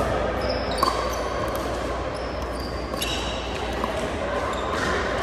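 Pickleball rally on an indoor hardwood court: a few sharp pops of paddles striking the plastic ball, with short high squeaks of sneakers on the court between them, in a reverberant gym.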